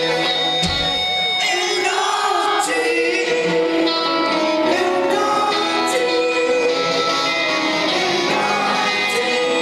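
Live rock band playing with singing that sounds like many voices at once, heard through a phone-style concert recording.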